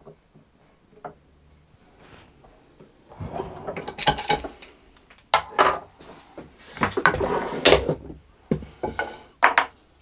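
A wooden clamping bar and screw clamp are loosened and lifted off a cello back and set down on a wooden workbench. Starting about three seconds in, there is a run of wooden knocks, clatter and brief scraping.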